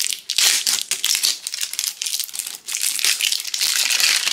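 Loud, close crinkling and crackling of a plastic tub of cloud slime being handled and opened, in several stronger bursts.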